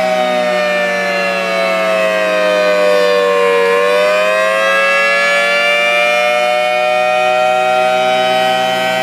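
Rotating outdoor civil-defense warning siren sounding for its scheduled test: a loud, multi-tone wail that sinks in pitch for about three seconds, climbs back up and then holds steady near the end.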